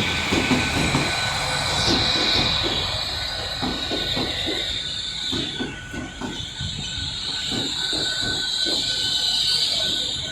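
A Class 800 train moving through the station, its wheels squealing on the rails in two long high-pitched squeals, one after the other. Underneath runs a steady rhythmic clatter of the wheels over the rail joints.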